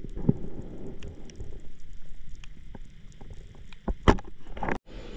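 Underwater sound through a submerged camera: a scattered crackle of small clicks over a low rumble, with a sharp knock a little after four seconds in as the pole spear strikes at the fish. The sound cuts out abruptly near the end.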